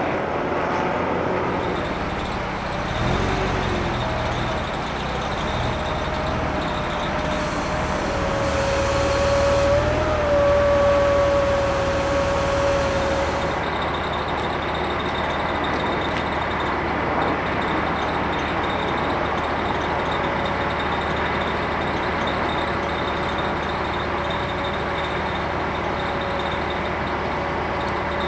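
Engines of a pickup truck and a truck-mounted forklift running steadily while the forklift unloads a box truck body from a trailer. A steady whine sits over the engine noise, loudest around the middle, with a fainter whine later.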